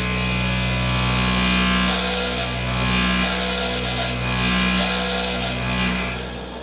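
Resodyn LabRAM resonant acoustic mixer running, its platform shaking about 60 times a second: a loud hum that throbs in and out, with a gritty rattle of polystyrene beads in the clamped tube as they mill graphene powder and are coated with it. It winds down near the end.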